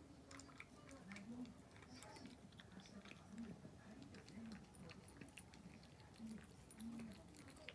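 A cat eating dry kibble from a ceramic bowl: faint, scattered crunches and clicks.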